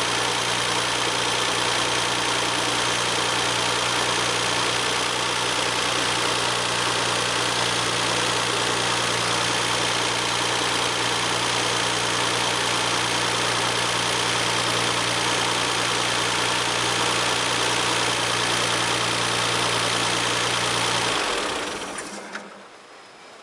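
Stock Nissan RB26 straight-six idling steadily, then switched off about 21 seconds in and running down to quiet. No abnormal noise comes from the fan area after shutdown.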